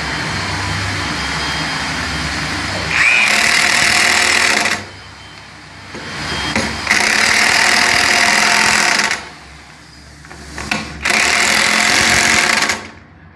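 Impact wrench driving hex-head lag screws through a steel plate into a wooden beam: a few seconds of quieter running, then three loud bursts of rapid hammering, each about two seconds long.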